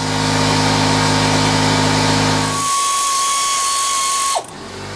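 Electric power tool motor running steadily with a low hum. About halfway through it changes to a higher, hissier whine with a steady tone, which drops in pitch and cuts off near the end.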